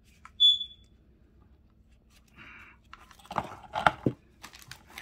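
Protective plastic cap being handled and pushed back onto an HDMI cable's connector: a short high squeak about half a second in, then a brief rustle and a cluster of clicks and crunchy plastic handling noises around three to four seconds in.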